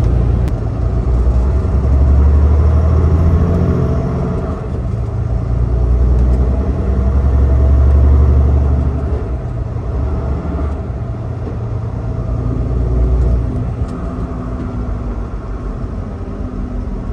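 Semi-truck diesel engine and road noise while driving, a loud low rumble that swells and fades in waves and eases off after about fourteen seconds.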